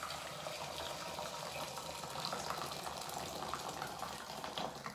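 Water poured in a steady stream from a kettle into a metal cooking pot, stopping at the very end.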